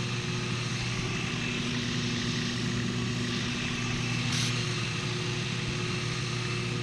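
Homemade 2x72 horizontal belt grinder running free with no work on the belt: its 1 horsepower 110-volt electric motor gives a steady hum, with the belt running over the wheels.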